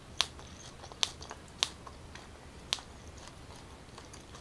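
Close-miked mouth sounds of someone chewing a bite of takoyaki with the lips closed: a few sharp, wet clicks at uneven intervals.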